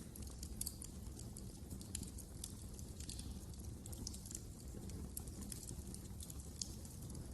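Wood fire crackling in a fireplace: irregular sharp snaps and pops over a steady low rumble of the flames.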